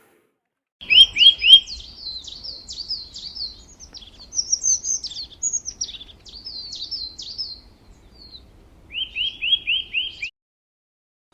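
A songbird singing a rapid string of short, high chirps, many sweeping quickly upward, ending with a run of five matching notes. The song starts about a second in and cuts off suddenly about a second before the end.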